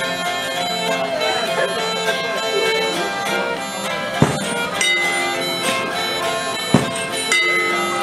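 A folk tune played on Northumbrian smallpipes, fiddle and a plucked long-necked string instrument, over the pipes' steady drone. A couple of sharp clicks stand out, about four and seven seconds in.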